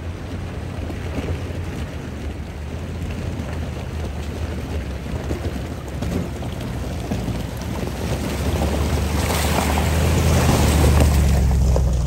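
Range Rover Sport wading through a shallow river, its engine running low under the swish and splash of water churned by its tyres. It grows steadily louder as it approaches, loudest near the end as it passes close by.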